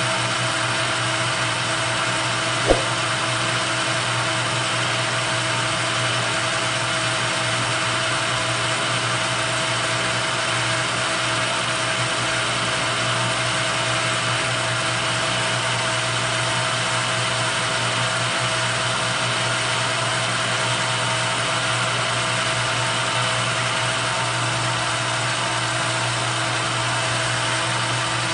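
Small metal lathe running steadily under power feed, a carbide insert taking a turning cut along a steel bar, with steady tones over the machine noise. The cut is chattering, which the machinist puts down to too deep a cut for so small a lathe. A single sharp click comes about 2.7 seconds in.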